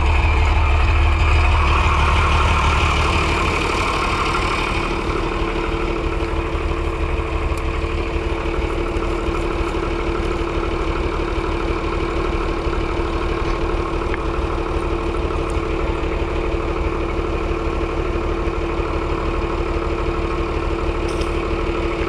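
Large farm machine's engine running at a steady speed, with a deeper low rumble in the first few seconds that then eases.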